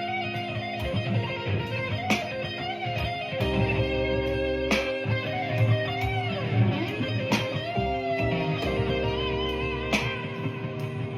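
Blues music: an electric guitar plays a lead line with bent notes a little past halfway, over held chords and a bass line, with a sharp accent roughly every two and a half seconds.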